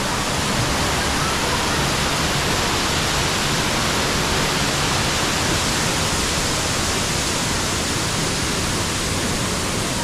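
Waterfall pouring into a rocky plunge pool: a steady, even rush of falling water.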